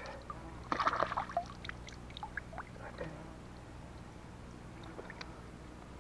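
A short splash of river water about a second in, then scattered drips and small ticks as swim goggles are rinsed and rubbed with wet sedge.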